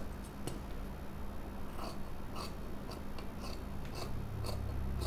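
Large steel dressmaking shears snipping through cotton fabric in a run of short, irregular cuts, the blades clicking as they close. The shears are worn and dull, their blades slipping on the cloth.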